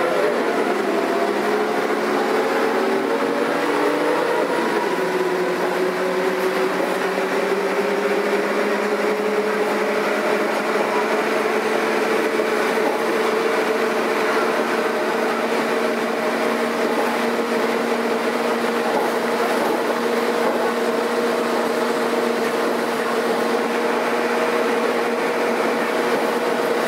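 Diesel engine of a Karosa B941 articulated city bus under way: its pitch drops twice in the first few seconds, then climbs slowly and runs on at a steady pitch.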